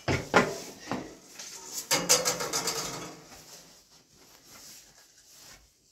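Sheet-metal stove being handled: a few knocks, then a louder metallic scrape with some ringing about two seconds in as its top lid is worked off, then quiet shuffling.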